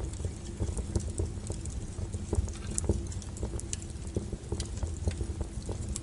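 Wood campfire burning: a steady low rush of flame under irregular sharp crackles and pops from the burning logs.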